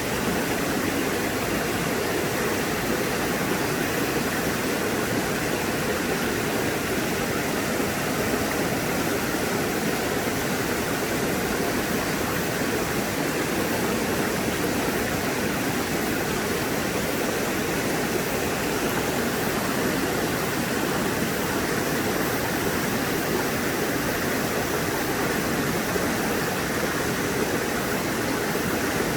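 Mountain-valley stream water flowing and splashing over rocks, a steady rush with no change.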